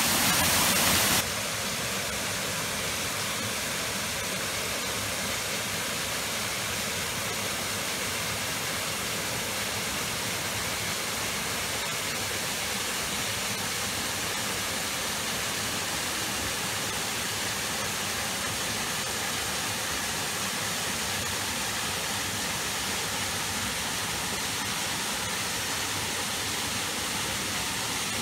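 Small waterfall pouring into a rock pool: a steady, even rush of falling water, louder for about the first second and then level.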